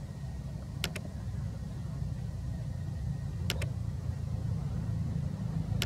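A steady low rumble on the microphone, with three quick double clicks of a computer mouse: under a second in, about three and a half seconds in, and at the very end.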